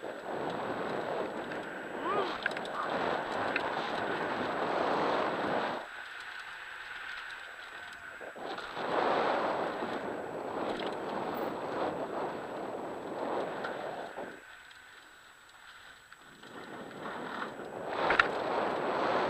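Wind on the camera microphone and mountain bike tyres on a dirt trail during a downhill ride, rising and falling in three stretches, with a sharp knock near the end.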